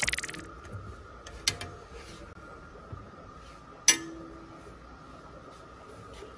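A music sting dies away at the start. Then comes a faint steady hum with two sharp clinks, one about a second and a half in and a louder one near four seconds in.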